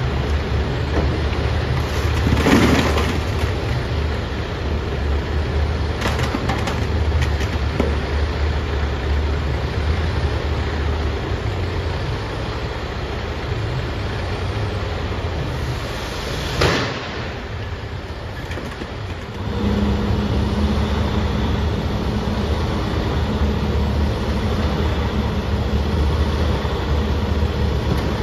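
Semi-truck diesel engine idling, with metal clanks and clatter as the dump trailer's rear gate is unlatched and swings open, and a single sharp bang a little past the middle. About two-thirds through, the engine picks up and a steady hum sets in as the trailer body starts to tip.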